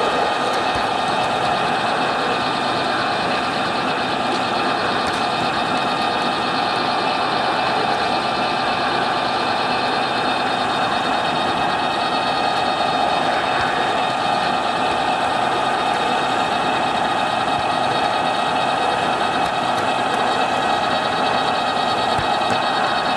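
Märklin gauge 1 V 100 model diesel locomotive running with its freight wagons, heard close up from the moving train: a steady motor-and-gear whine over the constant rolling rattle of wheels on the track.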